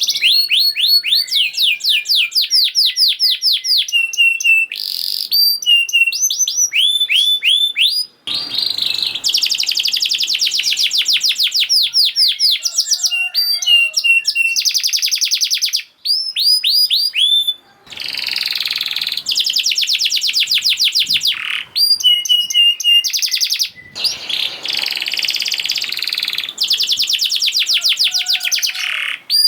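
Domestic canary singing a fast, tightly packed song of rapid trills and rolls: long runs of quick, repeated sweeping notes, broken by a few short pauses.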